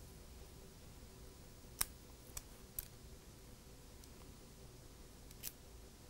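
Small sharp clicks from a plastic spudger prying the display cable connectors off an iPhone 3G/3GS logic board: three clicks in quick succession about two seconds in, the first the loudest, and one more near the end, over faint room tone.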